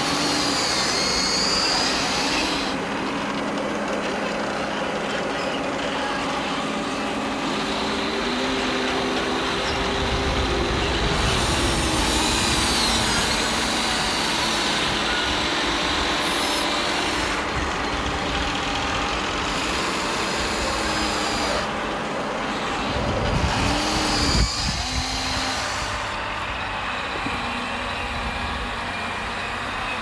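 Huina radio-controlled toy excavator working, its electric motors whining in stretches, the pitch shifting as the boom, bucket and tracks move under load in wet sand.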